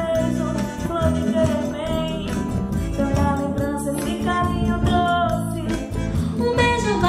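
Women singing a Brazilian arrasta-pé (forró) song in Portuguese, accompanied by acoustic guitar, accordion, triangle, bass guitar and hand percussion.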